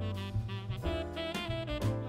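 Background jazz music: a saxophone melody over a bass line and drum kit.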